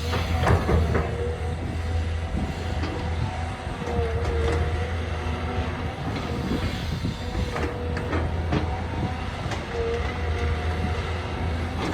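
Excavator working: a steady diesel engine drone under a whine that dips and rises in pitch, with scattered metallic clanks and knocks.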